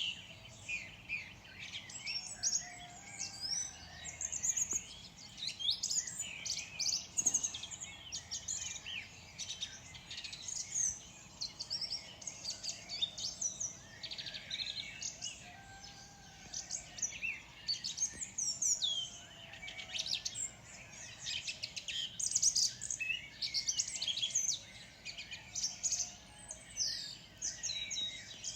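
Dawn chorus of many small songbirds, a dense mix of overlapping high chirps, twitters and short trills, continuous throughout.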